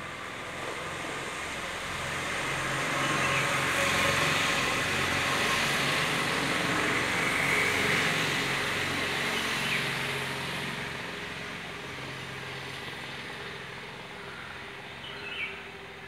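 A passing vehicle: a broad rumble that swells over a few seconds, holds, then slowly fades. A short high chirp near the end.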